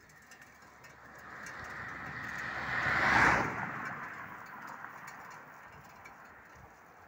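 A car driving past on a country road: tyre and engine noise that swells, is loudest about three seconds in, then fades away.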